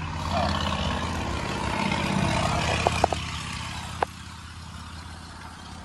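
A motor vehicle's engine running, swelling over the first couple of seconds and fading about four seconds in. A few short clicks and a knock as the wooden sash is handled against its frame.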